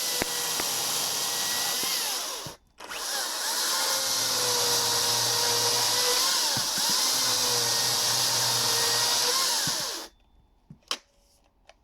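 Makita DUC353 twin-battery electric chainsaw running and cutting wood, its motor whine sagging in pitch under load and recovering. It stops briefly about two and a half seconds in, runs again, then stops near the end, followed by a few light knocks.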